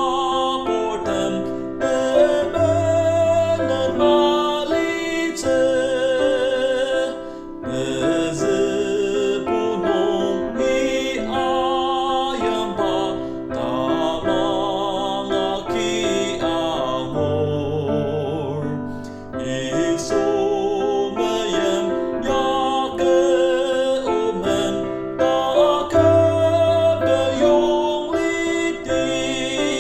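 Music: a singing voice with wavering vibrato over keyboard accompaniment.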